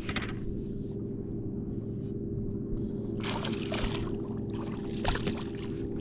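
Boat motor running steadily with an even hum, with a brief rushing noise about halfway through and again near the end.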